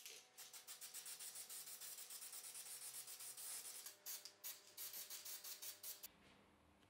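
Aerosol can of spray contact adhesive spraying onto a rubber strip: a faint, sputtering hiss in rapid short spurts, about six a second, that stops about six seconds in.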